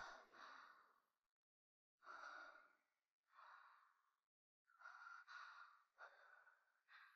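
A woman breathing heavily and sighing, faint: a series of long, breathy exhalations, about one every second and a half, with short silent pauses between them.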